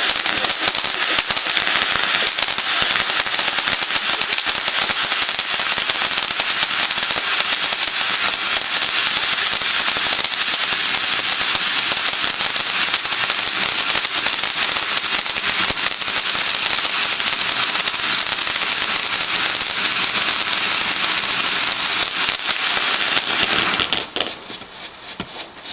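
Fireworks crackling: a dense, continuous rattle of rapid small pops that breaks off suddenly about 24 seconds in, leaving a few quieter pops.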